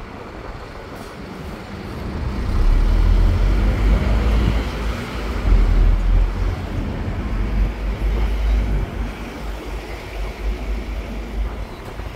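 Road traffic and the running of a moving open-top bus, with a heavy, uneven low rumble that comes in about two and a half seconds in and stays loud.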